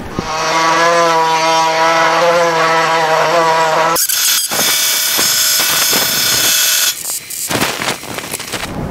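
MIG welder arc tacking a steel patch into thin, rust-eaten floor-pan metal: a steady buzz for about four seconds, then a loud crackling hiss, breaking into short spurts near the end. The voltage has been turned way down to get the weld to attach without blowing through.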